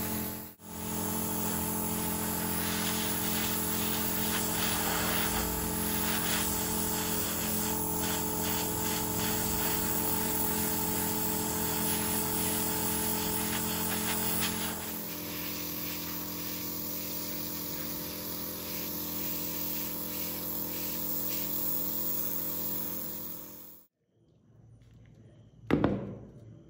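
Gravity-feed airbrush spraying primer onto a plastic model car body: a steady hiss over the hum of its small air compressor, which drops a step about halfway and stops shortly before the end. Then a single sharp knock as the plastic body is set down on a table.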